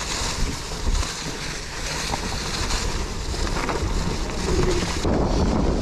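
Wind buffeting an action camera's microphone: a steady rushing noise with gusty low thumps, turning louder and duller about five seconds in.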